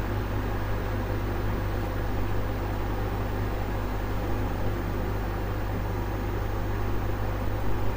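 Steady low hum with a constant hiss over it: the background noise of the room or recording equipment, with no other event.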